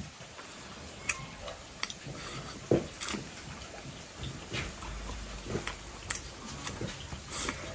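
A person eating rice and pan-fried dried fish with chopsticks: chewing and mouth sounds, with scattered light clicks throughout and one louder one nearly three seconds in.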